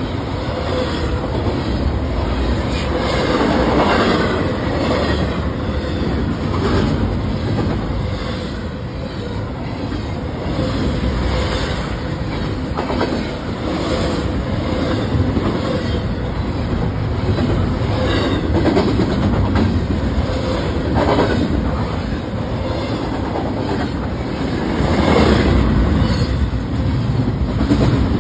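Double-stack intermodal container cars rolling past at close range: a continuous rumble of steel wheels on rail with rhythmic clicking over the rail joints, swelling and easing every few seconds.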